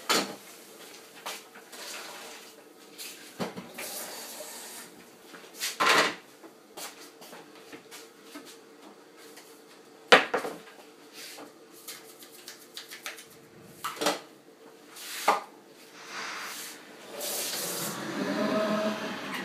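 Kitchen clatter: dishes and cutlery clinking and drawers and cupboard doors opening and shutting, as a string of separate knocks and clinks. A faint steady hum runs underneath, and a longer pitched sound comes near the end.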